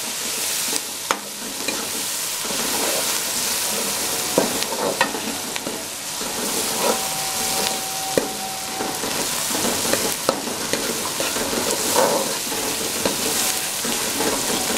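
Ground green chillies, onion and ginger-garlic sizzling in hot ghee in a metal karahi, with a steady hiss. A steel ladle stirs the mix, scraping and clicking against the pan now and then.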